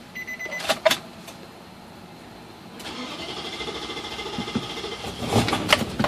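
Nissan Titan pickup's 5.6-litre V8 being started with the key: a steady warning chime and two sharp key clicks, then about three seconds in the engine cranks and starts running. The truck floods badly when started, which the owner puts down to a fuel pump that sometimes dies.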